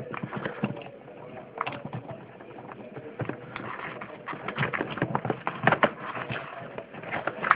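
Close handling noise: a run of irregular small clicks and knocks as a battery lead is plugged into the FPV video transmitter, over a faint steady tone.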